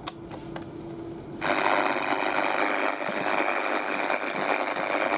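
Souness SNI-F100 portable radio switched over to the AM band: clicks from the band switch, then about a second and a half in its speaker comes on with a steady static hiss.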